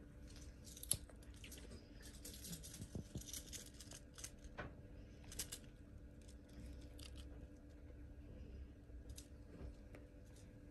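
Faint rustling and light crackling, with a sharp click about a second in, over a steady low hum in a quiet room.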